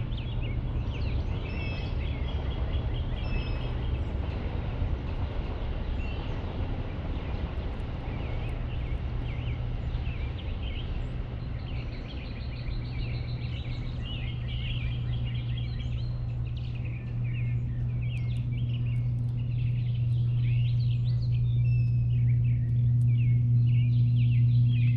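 Several songbirds chirping and singing, with many short calls and trills, over a steady low hum that grows louder in the second half.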